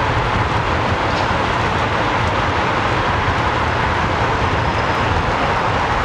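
Steady rush of wind and road noise on a bicycle-mounted camera, with the bike moving at about 40 km/h in traffic.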